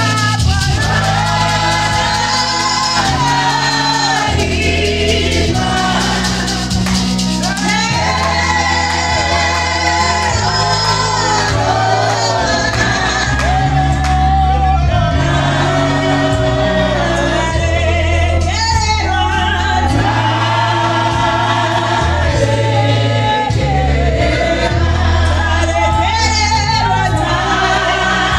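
Live Shona gospel song: a woman leads into a microphone with backing singers joining, over a steady bass accompaniment whose low notes change every second or two.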